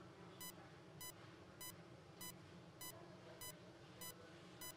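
Faint, regular beeping of an ICU bedside patient monitor: short high beeps about every 0.6 seconds, the pulse tone keeping time with the patient's heartbeat.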